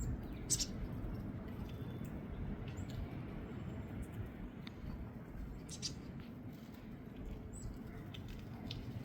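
Squirrels crunching nuts: scattered short, sharp cracks, the loudest about half a second in and again near six seconds. Brief high bird chips come now and then over a steady low background rumble.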